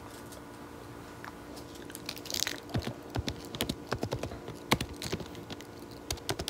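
Typing on a laptop keyboard: irregular keystroke clicks, several a second, starting about two seconds in, over a faint steady hum.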